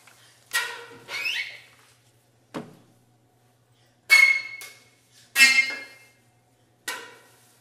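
Contemporary chamber music for flute, clarinet and violin: about six short, sharp, high accented notes and squeaks, each dying away quickly and separated by silences, with a brief rising glide about a second in.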